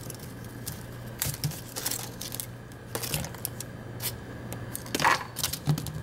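Leatherman Wingman stainless-steel multitool being handled: scattered small metallic clicks and snaps as its pliers and tools are opened and moved, over a faint steady low hum.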